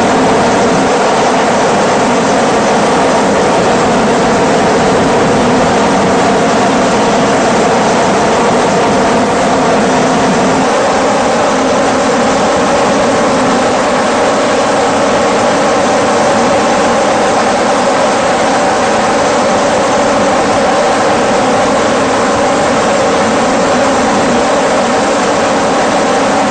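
Loud, steady engine drone with a constant hum and no change in pitch or level.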